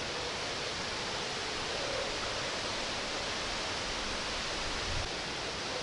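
Steady rushing of a nearby mountain stream, an even hiss of flowing water.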